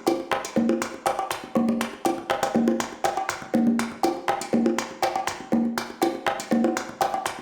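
Music: a quick, repeating pattern of short, pitched percussive strikes, the figure coming round about once a second.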